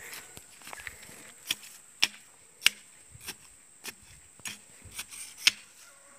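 Bamboo pole being worked down into the ground by hand, giving a series of sharp knocks, about one every half second.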